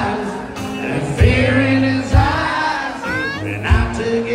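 Live band music with a singer: steady bass notes and a thumping beat about once a second, with voices singing over them, heard from within a crowded bar.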